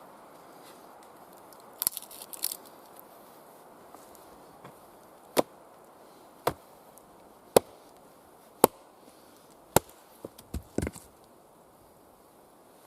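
Axe chopping and splitting wood: five sharp blows about a second apart, then a quick cluster of knocks and cracks near the end. A few lighter clicks come about two seconds in.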